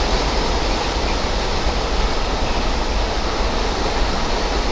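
A car drives through floodwater, giving a steady rushing noise of water and engine with a deep rumble underneath.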